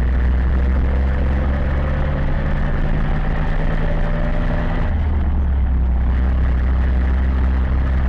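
Zetor 7011 tractor's four-cylinder diesel engine running steadily under way, heard from inside the cab. A faint rising whine sounds in the middle, and the deep engine note grows stronger about five seconds in.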